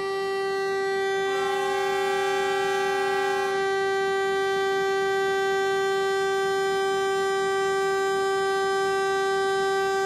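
Train horn sounding one long, steady blast. A second note joins in briefly from about one to three and a half seconds in.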